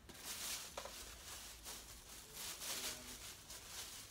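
Thin plastic shopping bag rustling and crinkling as a hand rummages through it, with a few light ticks.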